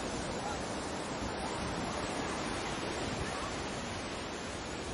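Baltic Sea surf washing in with a steady, even rush, with some wind.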